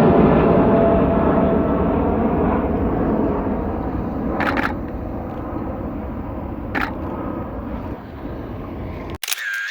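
Jet airliner's engines roaring on take-off, slowly fading as the aircraft climbs away, with two brief camera shutter sounds partway through. The sound cuts off abruptly near the end.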